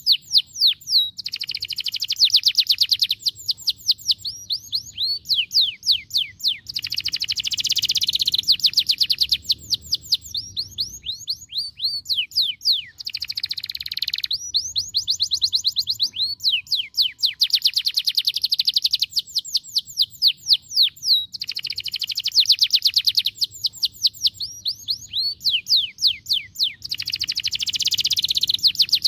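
Domestic canary singing: rapid rolling trills of fast repeated sweeping notes, in phrases of a few seconds separated by short pauses.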